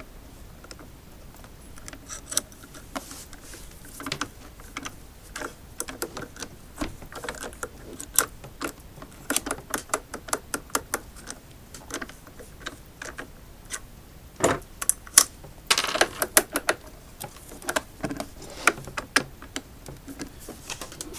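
Irregular clicks, taps and knocks as an Inmotion V5F electric unicycle is handled and worked apart by hand, with a louder flurry of knocks about two-thirds of the way through.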